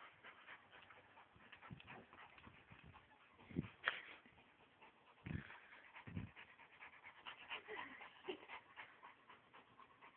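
Two dogs playing: faint panting and scuffling, with three soft thumps in the middle.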